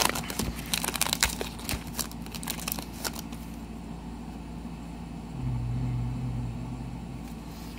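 Foil wrapper of a trading-card pack crinkling as it is peeled open and the cards slid out, for about three seconds. Then a brief low, steady hum, about a second and a half long, starting past the middle.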